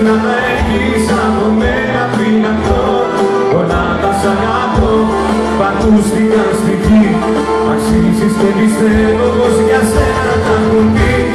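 Live Greek pop band playing a song, with a man singing lead at the microphone over drums, guitar and steady held low notes.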